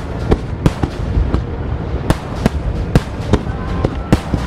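Aerial fireworks shells of a rapid-fire starmine bursting: about a dozen sharp bangs in irregular succession over a continuous low rumble of further bursts.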